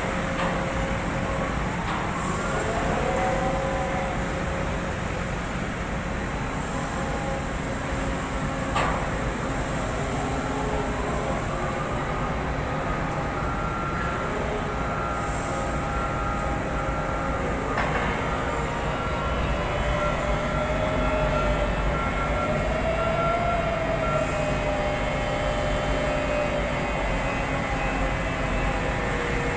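Gottwald HMC 5506 mobile harbour crane running steadily as it hoists and slews a ship's hatch cover. Whining tones rise and fall in pitch, and there is a sharp knock about nine seconds in and another about eighteen seconds in.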